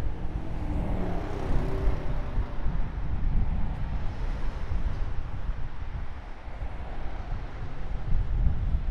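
Wind rumbling on the microphone, with a motor vehicle passing that is loudest about one to two seconds in.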